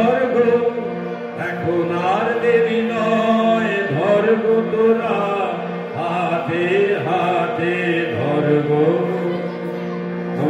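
A man singing a melody in long, drawn-out phrases, accompanied by a harmonium holding steady notes beneath his voice.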